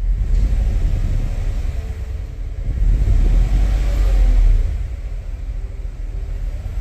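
A 2017 Cadillac Escalade's 6.2-litre V8 running rough with an uneven "du-du-du" stutter. It is revved up about three seconds in and settles back down. The roughness is the sign of misfires, which the scanner later puts on cylinders 2 and 8.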